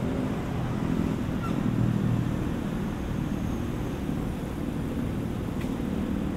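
Road traffic on a city street, a steady rumble of engines and tyres, with a vehicle passing close about two seconds in.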